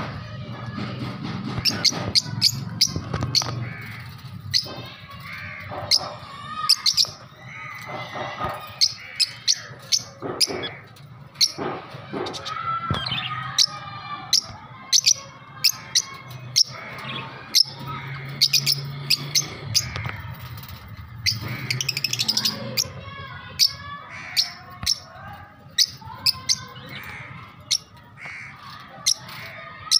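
Budgies (budgerigars) chattering and warbling, with many short, sharp high chirps throughout.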